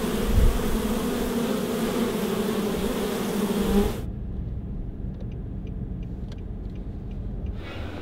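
Many honeybees buzzing together in a steady low hum, which cuts off about four seconds in. It gives way to the quieter low rumble of a car on the road, with a few faint ticks.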